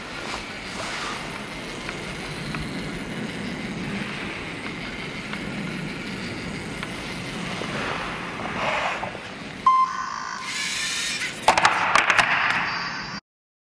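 LEGO Mindstorms robot driving on a tabletop: its motors running and wheels rolling with a steady mechanical hum. A short high beep sounds about ten seconds in, followed near the end by a burst of rapid clicking and plastic clattering that cuts off suddenly.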